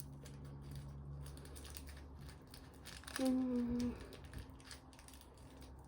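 Faint rustling and light clicking handling noises over a steady low hum, with a short held vocal sound, like an "mm", about three seconds in.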